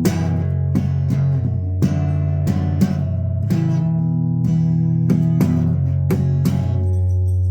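Guitar playing: strummed and plucked chords ringing on, struck again every half second or so as the chords change.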